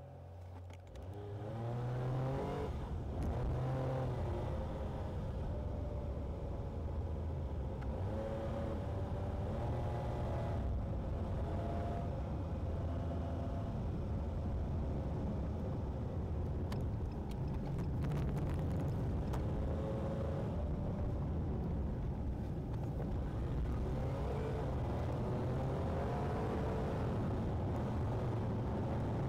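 Car engine heard from inside the cabin, pulling with revs rising several times (shortly after the start, about a third of the way in, and near the end) over steady road noise.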